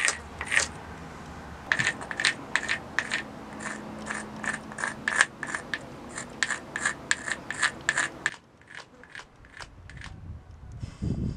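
Short, repeated scrapes of a hard point scratching a cross into a rock cave wall, about two or three strokes a second. Past the two-thirds mark the strokes become fainter.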